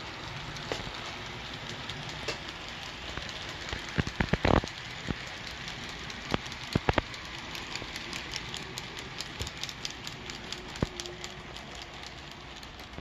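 Model steam train running on layout track, pulling a string of coal hoppers: a steady rolling rumble with scattered clicks, a cluster of louder clicks about four seconds in and a few more near seven seconds.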